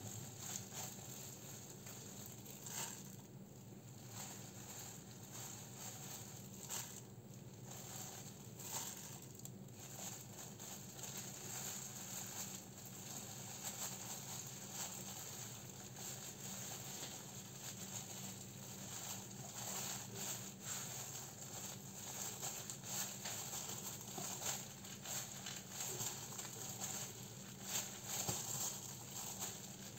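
Faint crinkling and rustling of clear plastic food-prep gloves and a bamboo sushi mat as the hands press and roll a sushi roll, with small irregular clicks, over a steady low hum.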